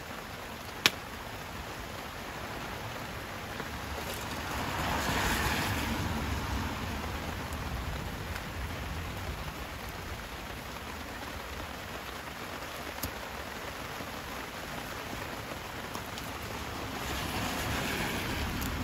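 Steady hiss of rain falling outdoors, swelling twice, with a single sharp click about a second in.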